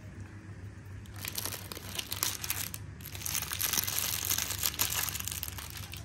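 Oreo's crinkly plastic wrapper being crumpled in the hands: a dense crackling that starts about a second in, breaks off briefly near three seconds, then goes on.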